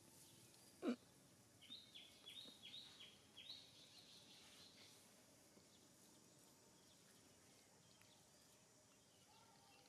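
Faint outdoor background with one short sharp click about a second in, then a quick run of about six short, high chirping calls lasting around three seconds.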